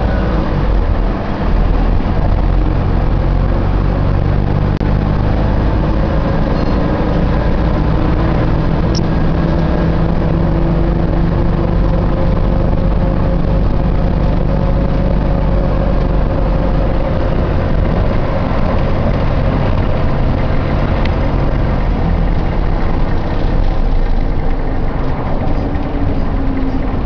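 Optare Solo bus running, a steady engine and road-noise drone overlaid with whining tones that slowly rise and fall in pitch.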